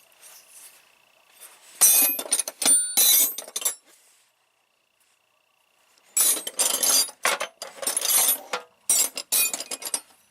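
Metal sockets and tools clinking and rattling in a steel tool box drawer as they are handled, in two spells of clatter with a quiet gap between.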